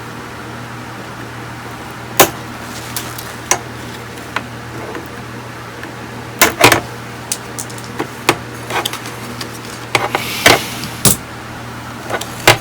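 Scattered sharp clicks and knocks of small tools and parts being handled on a workbench, over a steady low hum. The knocks come every second or two, with a double knock about six and a half seconds in and a quick cluster about ten seconds in.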